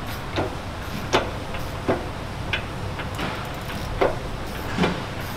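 Salisbury differential's pinion and crown wheel turned forward and back by hand under light load, rolling a gear contact pattern: irregular clicks and knocks of the gear teeth, about one every half second to a second, over a steady low hum.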